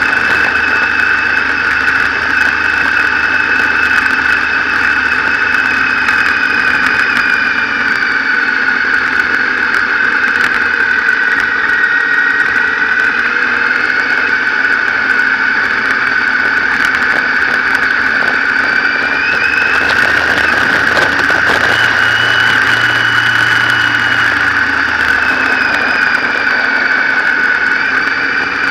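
Motorcycle engine running while riding, its pitch rising and falling with the throttle through the bends, under a steady high whine.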